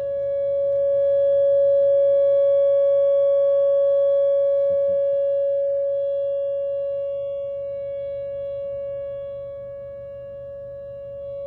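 Outdoor tornado warning siren sounding a steady wail at one pitch during a scheduled test, swelling louder over the first couple of seconds and then slowly fading.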